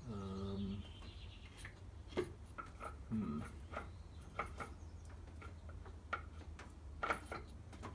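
Scattered light clicks and taps as the Optispark distributor and its drive pin are handled and fitted at the front of an LT1 V8. A short hum-like voice sound comes near the start and again about three seconds in.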